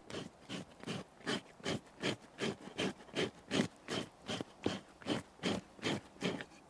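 A reindeer skin being scraped by hand to remove loose flesh and smooth the surface, in steady rhythmic rasping strokes, about two and a half a second, which stop near the end.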